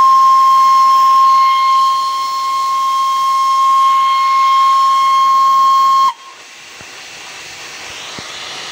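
Darjeeling Himalayan Railway B-class steam locomotive's whistle blowing one long steady note, cut off sharply about six seconds in. Steam hissing follows, growing louder toward the end.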